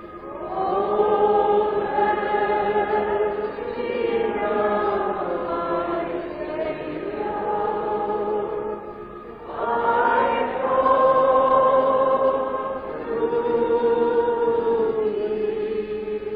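A choir singing a gospel hymn in long, held phrases, with a brief break between phrases about halfway through. It is a 1970s recording with a dull, muffled top end.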